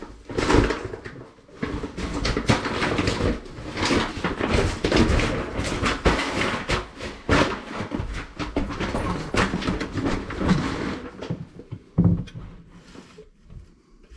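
Porcelain toilet being carried and lowered onto its floor bolts and wax ring: busy handling noise of knocks, scrapes and shuffling, easing off near the end, with a heavier knock about twelve seconds in.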